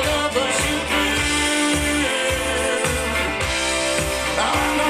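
Rock music with a steady drum beat, about two hits a second, played back through Aeria Compact hi-fi loudspeakers driven by a Luxman FQ 990 amplifier.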